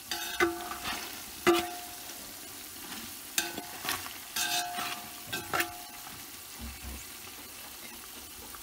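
A metal spoon scraping and knocking against the inside of an aluminium cooking pot several times, the pot giving a short metallic ring after each stroke. Under it, the chicken pieces sizzle gently in their oil.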